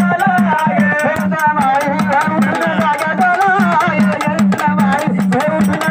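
Gondhal devotional music: sambal drums beat a fast, steady rhythm under a wavering melody line, with a rattling jingle on top.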